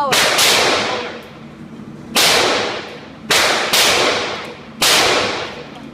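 Gunshots at a shooting range: six sharp cracks in quick, uneven succession, two pairs close together, each trailing off in about a second of echo. The shots come faster than the coached shooting, so other guns are firing alongside a child's .22 rifle.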